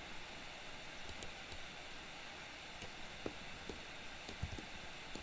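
Steady microphone hiss with a few faint, irregular clicks of a computer mouse or keyboard.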